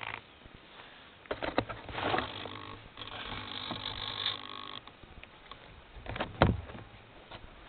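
Handling noise on a model plane's onboard camera microphone: rustling, scraping and knocks as the foam airframe is picked up and carried, with one loud knock about six and a half seconds in.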